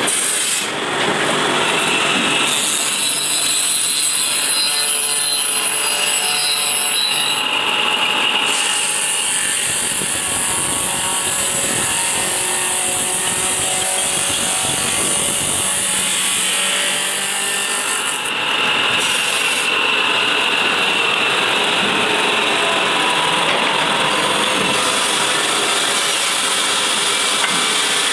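Woodworking machinery, such as power saws, running and cutting wood and board: a steady, dense mechanical noise with a faint high whine, its character changing abruptly a few times.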